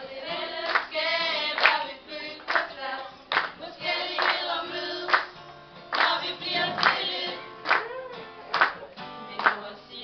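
A group of female voices singing a song with acoustic guitar, while hand claps keep a steady beat a little slower than one per second.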